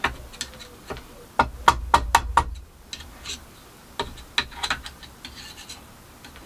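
Sharp metal-on-metal clicks and taps of hand tools against a mitre saw's gear housing as a gearbox part is worked into place: a quick run of about six taps a second or so in, and a few more around four seconds in.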